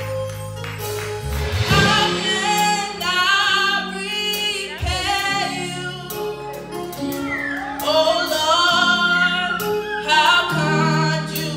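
Gospel song: a young woman sings the lead through a microphone, her voice wavering and sliding between held notes, over steady low accompaniment.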